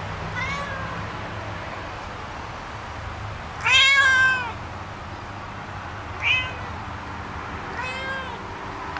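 Cat meowing four times, the loudest and longest meow about four seconds in, with shorter ones near the start, around six seconds in and near the end.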